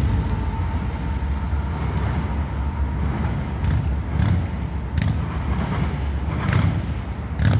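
Low rumble of a freight train moving away from the crossing, slowly fading, with a few sharp clanks in the second half. A faint steady tone dies away about three seconds in.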